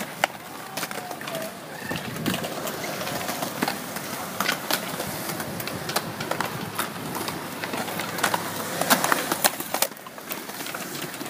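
Wheels rolling over a concrete skatepark floor, with irregular sharp clacks of skateboards hitting the ground; quieter after about ten seconds.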